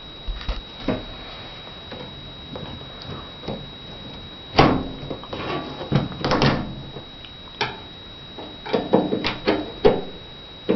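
A series of irregular knocks and clunks, like things being handled and set down, louder in groups about halfway through and near the end.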